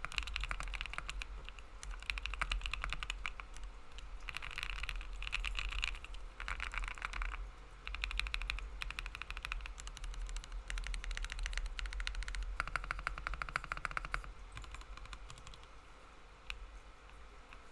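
Fast typing on a foamless 60% custom mechanical keyboard with Gateron Creamy Oil linear switches, 60A O-rings and a PLA half plate, in quick runs of keystrokes that thin out near the end. The builder calls the sound pretty solid with a tad bit of hollowness.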